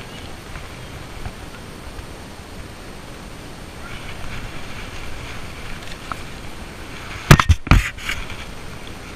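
Quiet open-air background, then a short cluster of loud knocks and rustling a little over seven seconds in as the GoPro is handled or bumped.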